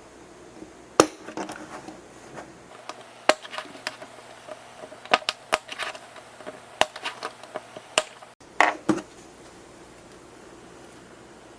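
3D-printed PETG plastic parts clicking and knocking together as they are fitted, a string of scattered sharp clicks with a louder knock about a second in and a couple more near the end.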